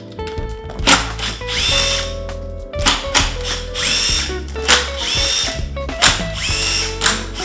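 Cordless electric screwdriver run in short bursts about once a second, its motor whine rising and levelling off each time, with sharp clicks in between. Background music plays underneath.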